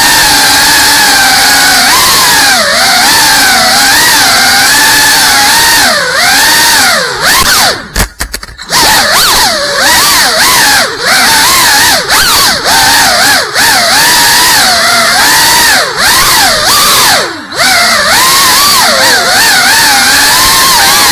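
GEPRC CineLog 35 cinewhoop's brushless motors and ducted props, heard close through the onboard camera's microphone: a loud buzzing whine that rises and falls in pitch with the throttle as the quad flies. The whine drops away briefly about eight seconds in and again near seventeen seconds, where the throttle is cut, then climbs back.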